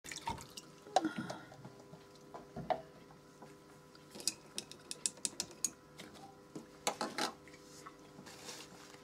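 Handling noises on a work table: irregular clicks and knocks as a plastic bottle and other small items are picked up and set down, with a quick run of light ticks in the middle. A soft rustle near the end, over a faint steady hum.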